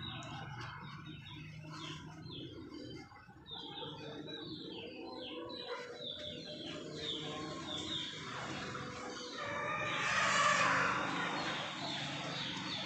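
Birds chirping in many short, repeated descending chirps over a steady low hum. About ten seconds in, a louder rustle of tissue paper being laid and pressed down in a plastic box.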